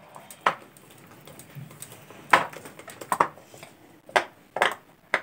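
A hand beating soft, sticky yeast batter in a plastic bowl: irregular wet slaps, about nine, coming faster in the last second or so.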